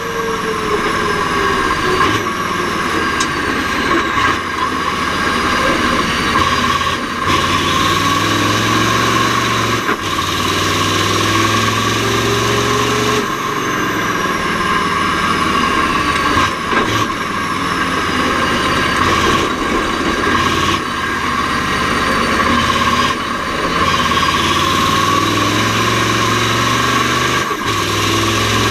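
Mack R-series V8 diesel race truck running hard under load, its engine note breaking briefly every few seconds as the driver shifts through the Roadranger gearbox, with a high whine that falls in pitch between shifts.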